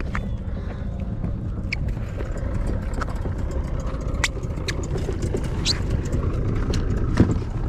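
Steady low rumble of wind on the microphone, with a scatter of short clicks and knocks as a PVC-pipe catfish jug and its line are pulled in and handled.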